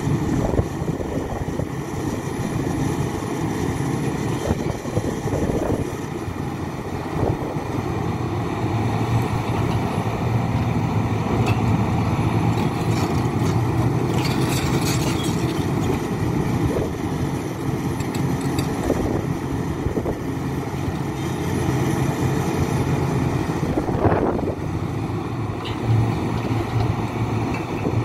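Diesel engine of a Hidromek HMK 410LC hydraulic excavator running hard while digging and loading a truck, its pitch rising and falling with the work, with occasional knocks and a brief hiss about halfway through.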